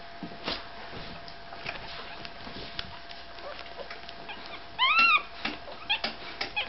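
Five-day-old Staffordshire Bull Terrier puppies nursing, with faint scattered clicks. About five seconds in, one puppy gives a loud, high whimper that rises and falls, followed by a few short squeaks.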